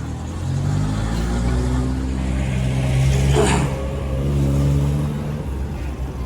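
Bus diesel engine running under load close by, swelling to a peak in the middle and easing off near the end, with a brief hiss about three and a half seconds in.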